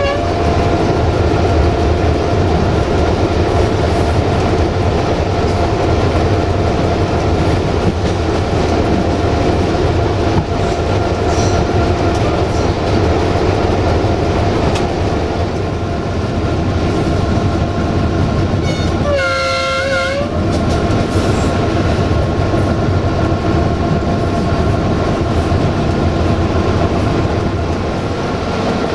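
Cab of an LDH1250 diesel-hydraulic locomotive under way: a steady engine and transmission drone with running noise from the track. About two-thirds of the way through, a train horn sounds once for about a second and a half.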